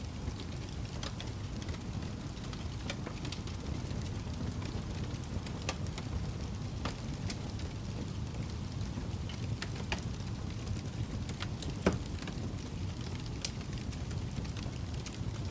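Fire crackling in a fireplace: scattered pops and snaps over a steady low rumble, with one sharp, louder pop about twelve seconds in.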